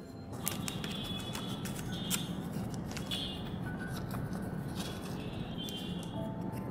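Paper and thin plastic rustling, with light clicks and taps, as printed sticker cards and their clear plastic sleeves are handled and laid on a wooden desk.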